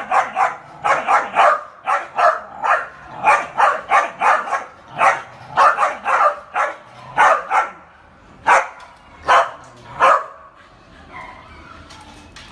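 A dog barking over and over, two or three sharp barks a second, the barks spacing out and stopping about ten seconds in.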